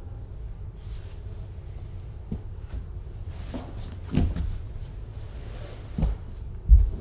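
Scattered creaks, clicks and dull knocks from a person's body moving and being contorted, with three heavier thumps in the second half, the loudest near the end.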